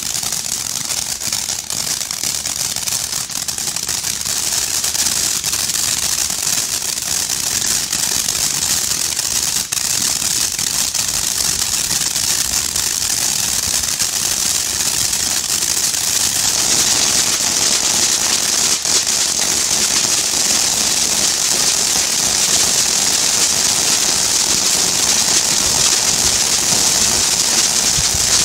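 Ground fountain fireworks hissing steadily as they spray sparks, with light crackling throughout; the hiss grows a little louder about halfway through.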